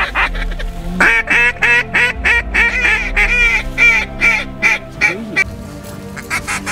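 Mallard duck call blown by a hunter: a fast run of hen quacks at about four a second, followed by a few shorter quacks near the end, with background music underneath.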